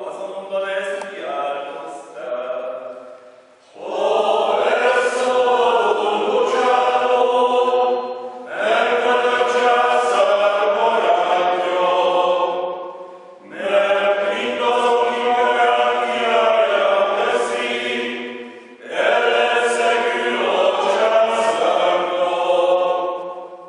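Men's choir singing a slow hymn in four long phrases with short breaks for breath. A lighter, quieter phrase comes before the full choir enters.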